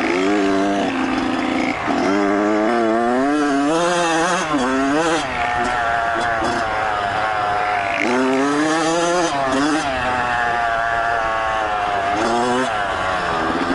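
Kawasaki KX100 two-stroke dirt bike engine revving up and down while riding, its pitch climbing and dropping back again and again as the throttle opens and the gears change.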